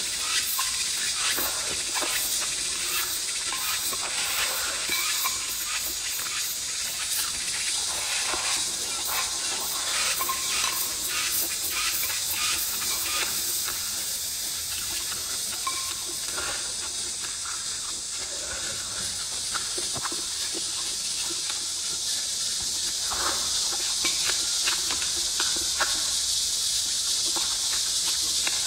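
Close-up eating: chewing and mouth clicks, with wooden chopsticks tapping against a ceramic bowl, over a steady high-pitched hiss.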